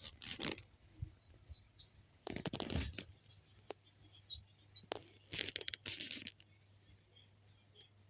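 Three short bursts of scratchy rustling noise, each under a second long: one near the start, one around two and a half seconds in and a longer one past five seconds, with a few sharp clicks between them.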